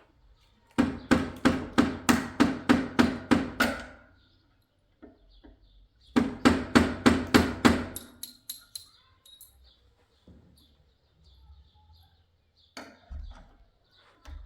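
Hammer blows during a wooden door lock repair: two quick runs of about four strikes a second, the first of about a dozen blows and the second of about eight, followed by a few lighter knocks near the end.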